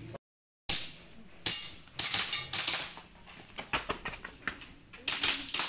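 Airsoft pistol firing a string of shots during a practical-shooting course of fire: about a dozen sharp cracks in quick, uneven bursts, with a short pause in the middle. A brief dead silence near the start.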